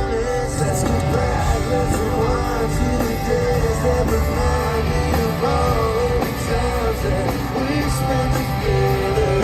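A pop-punk band playing live at full volume, with electric guitar and a voice singing over it.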